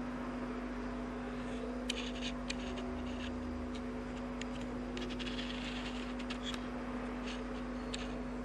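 A steady low hum with a fainter overtone, with faint scattered ticks and light scratchy rustles over it.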